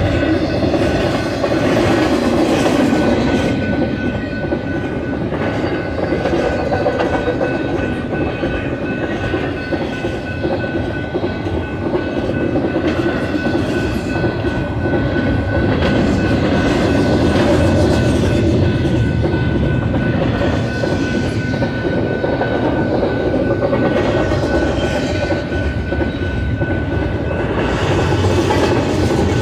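Loaded double-stack container well cars of a BNSF freight train rolling past, wheels clacking steadily over the rails, with a thin steady high tone running along above the rumble.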